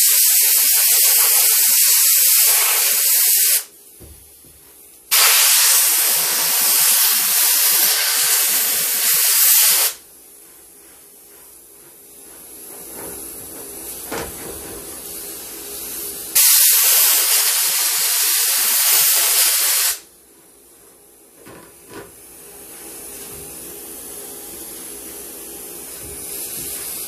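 MIG welder stitch-welding a steel patch into a car trunk lid: three bursts of loud, even hissing, each a few seconds long, separated by quieter pauses while the sheet metal cools.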